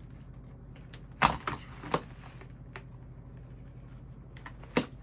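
A few sharp clicks and snaps of a doll's plastic packaging tray being handled, the loudest about a second in, another at about two seconds and one near the end.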